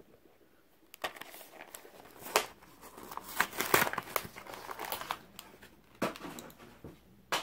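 Plastic blister pack of a 1/64 diecast car being torn open off its cardboard backing card: irregular crinkling and crackling with sharp snaps, then a single click near the end.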